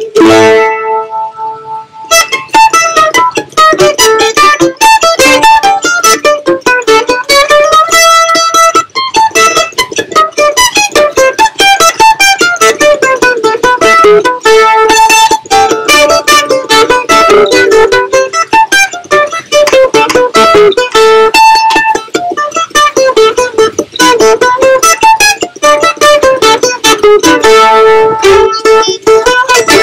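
F-style mandolin played solo: a note rings out and fades over the first two seconds, then fast picked runs of notes climb and fall without a break.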